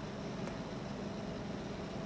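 Steady background hum and hiss of room noise, with no distinct events.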